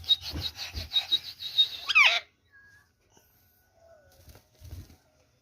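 Indian rose-ringed parakeet giving a rapid string of high, shrill chattering notes, about seven a second, that ends about two seconds in with a loud downward-sliding squawk; after that only faint small sounds.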